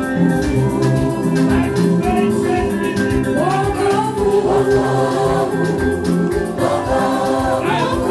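Gospel choir song: a group of voices singing over a bass line and a steady beat, the voices coming in more strongly about three and a half seconds in and again near the end.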